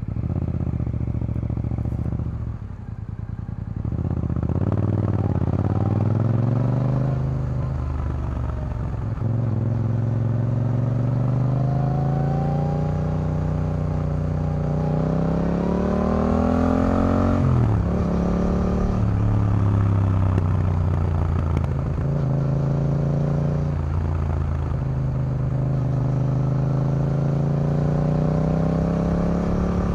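Yamaha MT-07's parallel-twin engine breathing through an Akrapovic carbon full-system exhaust, heard from the rider's seat as the bike accelerates through the gears. The engine note rises in long climbs, falls sharply about halfway through and climbs again, then settles to a steady cruise.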